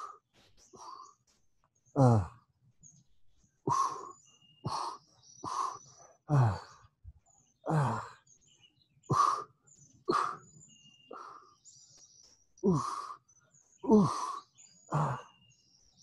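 A man breathing out hard with a short grunt on each lifted-leg crunch, about once a second, while small birds chirp in the background.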